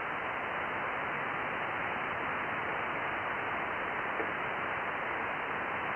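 Steady static hiss of a ham radio's sideband audio, cut off above about 3 kHz, with no signal in it.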